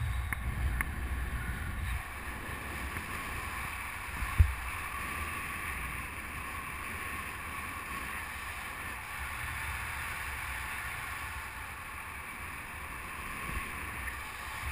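Wind rushing over the microphone of a camera on a paraglider in flight: a steady low rumble with an airy hiss. A single sharp thump about four and a half seconds in.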